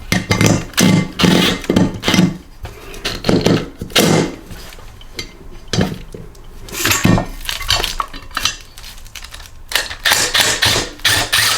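Hand tools and metal engine parts clinking and clanking in irregular strokes as a wrench is worked on the governor arm fastener of a stripped-down Briggs & Stratton small engine.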